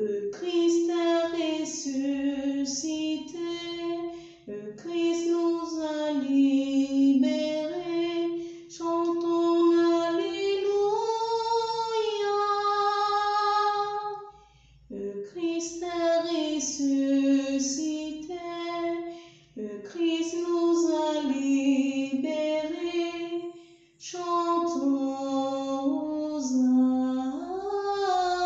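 A woman singing a hymn of Christ's resurrection alone, without accompaniment, in phrases with short breaks between them.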